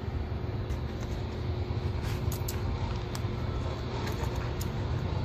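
Steady low rumble of distant road traffic. Over it come a few faint light clicks of a plastic voltage-detector pen and metal tools knocking as the pen is tucked into a tool organizer.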